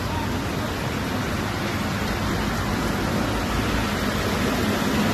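Heavy rain pouring steadily on a flooded road, a dense even hiss, with vehicles driving through the water.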